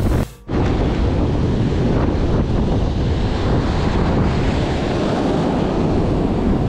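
Rough sea surf washing over shore rocks, with wind buffeting the microphone. The sound drops out briefly just after the start.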